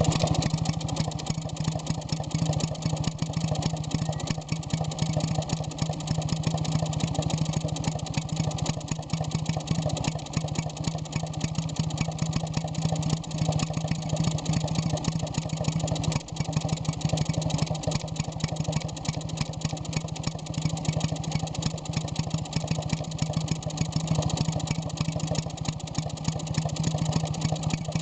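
Rebuilt 1948–49 Villiers WX11 two-stroke water-cooled stationary engine running steadily, with a rapid, even firing beat.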